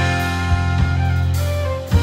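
Live country band playing an instrumental passage without vocals: acoustic and electric guitars, fiddle and drums, over held notes, with a few sharp drum hits.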